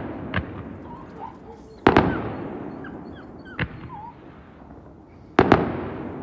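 Fireworks display: aerial shells bursting, with a loud boom about two seconds in and a double boom near the end, and smaller bangs between. Each bang trails off in a long rumbling echo.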